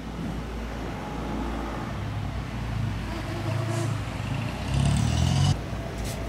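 A motor vehicle's engine running on the road, growing louder to its loudest about five seconds in, then cutting off suddenly, over a steady low rumble.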